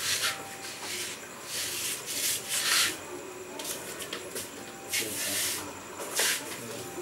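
A series of short, scratchy rubbing sounds, about six over several seconds, coming at irregular intervals.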